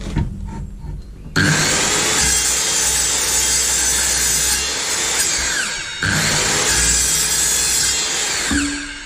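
Evolution 165 mm TCT multi-material circular saw cutting through a pipe. It starts suddenly about a second and a half in, dips briefly around the middle, carries on cutting, and winds down near the end.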